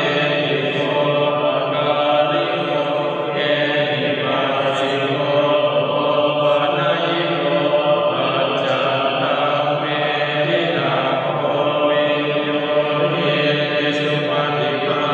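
Buddhist chanting by low male voices: a steady recitation held on a near-constant pitch without pauses, with brief hissing consonants now and then.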